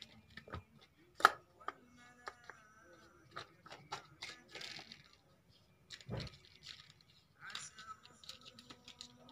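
A kitten playing with a small object on a tiled floor: scattered light clicks and taps as it is batted about, with one sharper click about a second in and a dull thump about six seconds in.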